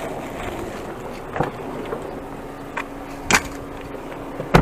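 A vehicle moving along, with steady road noise and a faint low hum, broken by a few sharp knocks or clicks, the loudest two near the end.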